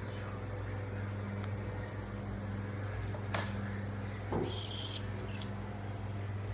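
Steady low electrical hum. A sharp click about halfway through and a soft knock a second later.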